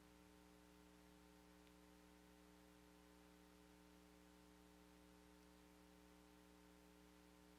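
Near silence: only a faint, steady electrical mains hum with several higher overtones.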